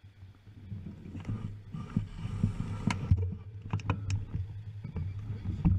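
Bicycle rolling off from a stop, a steady low rumble with irregular knocks and rattles through the bike-mounted camera.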